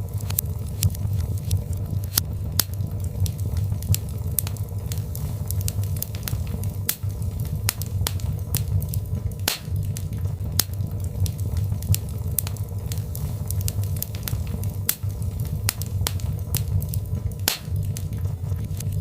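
Birchwood fire crackling, with frequent sharp pops and snaps over a steady low rumble of the flames.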